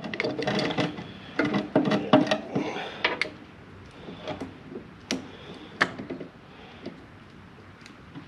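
Tools and parts being handled during repair work: a quick run of knocks, clicks and rubbing in the first three seconds, then a few scattered clicks.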